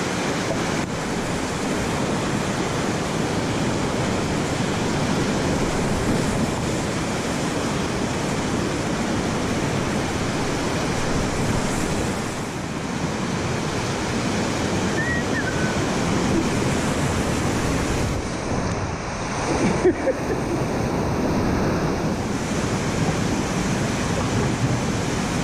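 Loud, steady rushing of whitewater in a river rapid, close around an open canoe, with one brief sharp hit about twenty seconds in.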